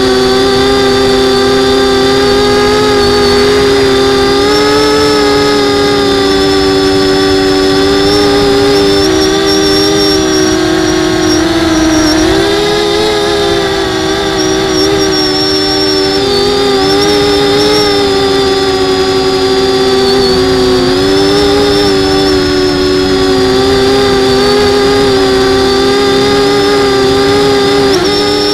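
Brushless motors and propellers of a 250 mm FPV quadcopter whining steadily, several close tones wavering up and down in pitch together as the throttle shifts.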